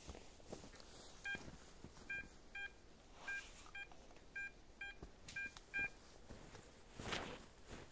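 XP Deus metal detector sounding a string of about nine short, high beeps, roughly two a second: its audio response to a buried metal target under the coil. A rustle follows near the end.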